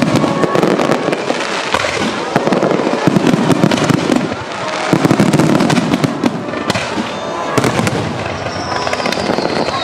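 Aerial fireworks bursting in quick succession, a dense barrage of bangs and crackles. A high whistle falls in pitch near the end.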